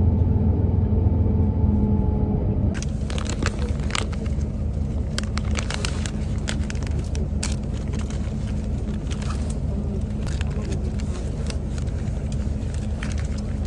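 Steady low rumble of a bus interior in motion. About three seconds in, the rumble drops, and a plastic face-mask wrapper crinkles and crackles repeatedly as it is handled and opened.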